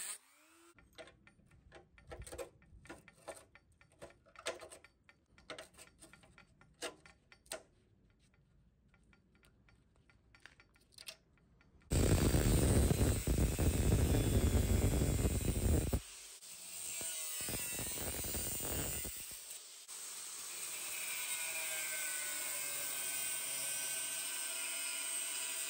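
A small rotary tool stops just after the start, followed by several seconds of faint scattered taps and scrapes. About twelve seconds in, an angle grinder with a cut-off disc starts cutting abruptly and loudly into the rusted sheet steel of a car tailgate, cutting out rotten metal. It breaks off and cuts again in bursts, then runs steadily with a whine near the end.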